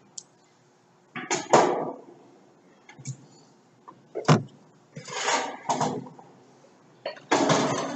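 Irregular knocks and short bursts of metal clatter from a heavy radiator and intercooler pack as an overhead crane lowers it into the excavator's engine bay.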